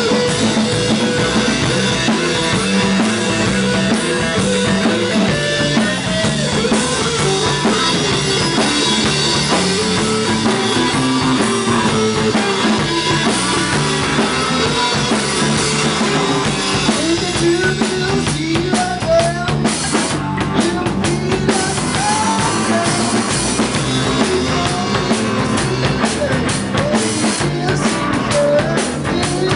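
Music with a drum kit playing, continuous throughout, the drum strokes growing denser in the second half.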